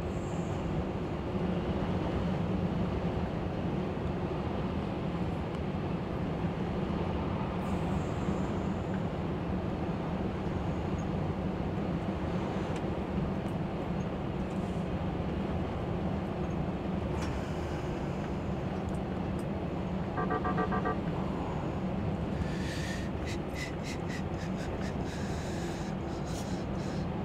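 Truck engine and road noise heard inside the cab while driving, a steady low drone. About twenty seconds in a short pulsed tone sounds, and near the end there is a run of sharp clicks.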